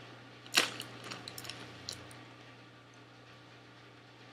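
Foil snack bag of Cheetos popcorn being handled and crinkled: one sharp crackle about half a second in, then a few lighter clicks, after which it goes quiet.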